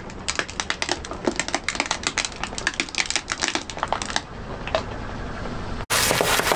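A car tyre rolls over a row of small plastic toy cars, cracking and snapping them in a rapid run of crunching clicks for about four seconds, with one last snap shortly after. Near the end it cuts abruptly to a different, louder sound.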